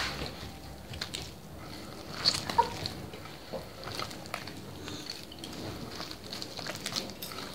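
A hand squeezing and working a soft butter, sugar and oil mixture against a glazed terracotta dish: soft squishing and rubbing with scattered small clicks, and a couple of sharper knocks about two and a half seconds in.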